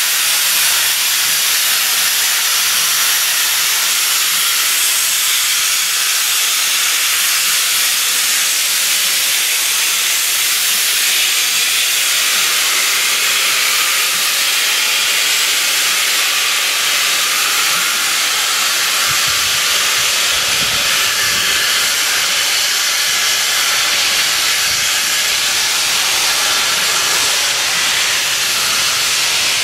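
Steam locomotive venting steam: a steady, loud hiss, with a few low rumbles about two-thirds of the way through.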